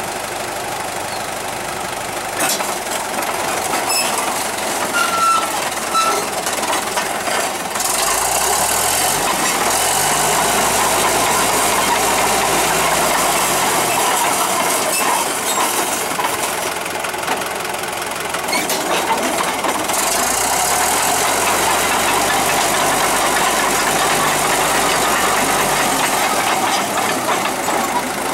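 CAT D4D dozer's four-cylinder diesel engine running, revving up twice for several seconds at a time as the crawler travels, with steel tracks clanking.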